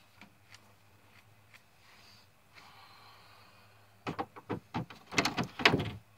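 Metal hand tools and sockets clicking and clinking in a car's engine bay. A few faint clicks come first, then from about four seconds in a quick run of rattling clicks, loudest shortly before the end.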